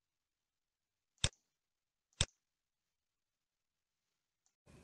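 Two sharp computer mouse clicks about a second apart, with dead silence around them.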